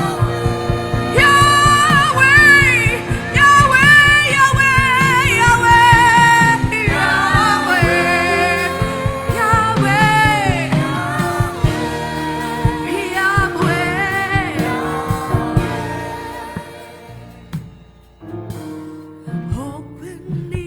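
Gospel worship music: singing over a steady beat, which thins out and drops to a softer, quieter passage near the end.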